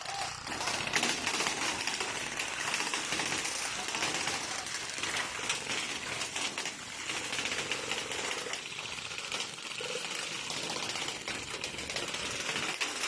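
Airsoft guns firing, a dense rapid clicking rattle that goes on with small rises and falls throughout.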